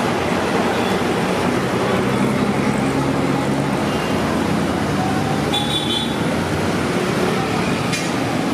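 Steady street traffic noise, with a vehicle engine humming for a few seconds and a brief high-pitched tone a little past the middle.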